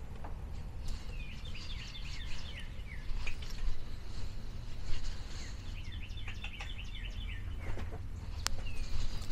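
A songbird singing twice, each phrase a quick run of short chirps that slide downward in pitch, over a steady low rumble, with a few sharp clicks.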